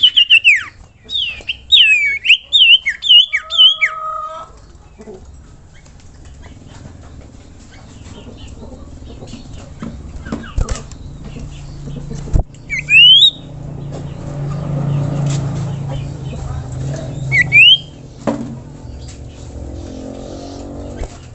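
Common iora (cipoh) calling: a quick run of sharp, rising whistled notes in the first few seconds, then single rising whistles at long gaps, over a low background hum.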